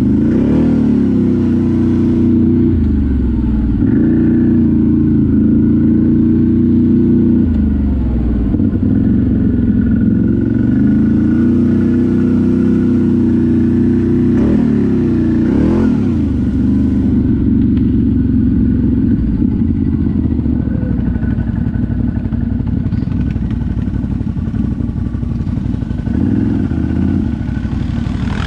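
ATV engine running steadily under throttle while riding off-road, with brief revs rising and falling about a second in and again about halfway through.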